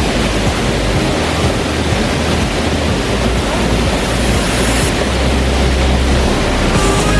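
Loud, steady rushing of a waterfall close by, a dense roar of falling water with a low rumble beneath it. Near the end, faint music tones come in over it.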